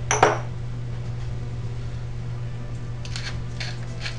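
A sharp clink right at the start, then a hand-held pepper mill being twisted over a bowl, giving short grinding strokes about three a second from about three seconds in. A steady low hum runs underneath.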